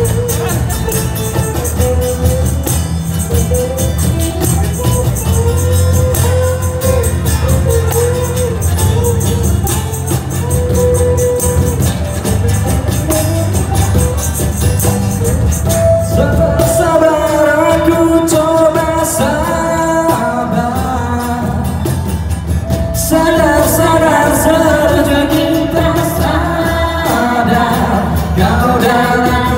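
Live acoustic rock band playing, with electric and acoustic guitars, a cajón and a jingling tambourine. Singing comes in louder about halfway through, with a man and a woman singing together near the end.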